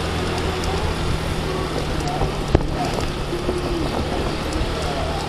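Motorcycle riding in traffic: a steady engine hum under heavy wind and road noise on the microphone, with one sharp click about two and a half seconds in.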